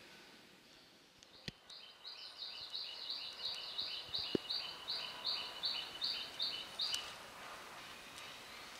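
A bird calling a long run of short, high, repeated notes, about four a second, slowing a little before stopping about seven seconds in. A sharp click sounds about a second and a half in.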